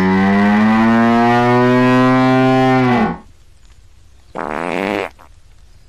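Hippopotamus calling: one long, deep bellow of about three seconds that rises slightly in pitch and drops off as it ends, then a shorter, higher call a bit over four seconds in.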